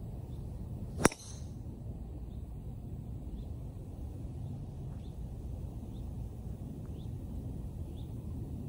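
Golf driver striking a teed ball about a second in: a single sharp crack. Then a steady low background rumble with faint short high chirps about once a second.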